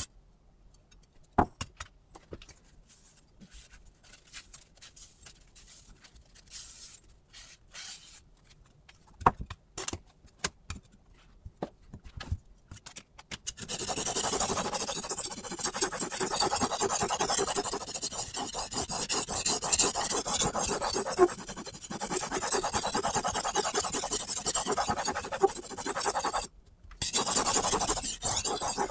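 Kitchen knife blade in a Hapstone T1 angle guide stroked back and forth over a sharpening stone, heard as rapid, continuous scraping of steel on stone at triple playback speed. The first half holds only scattered clicks and knocks from handling the blade and guide; the scraping starts about halfway in and breaks off briefly near the end.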